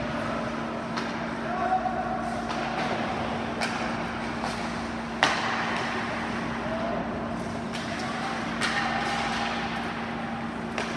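Ice hockey game sounds at a rink: scattered knocks of sticks and puck, with one sharp crack about five seconds in, over a steady low hum and faint distant voices.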